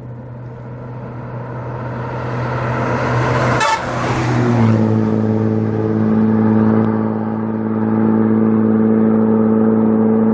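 Hino bus approaching and passing close by, growing louder until it goes past about three and a half seconds in, when its note drops in pitch. A steady droning note with clear overtones follows.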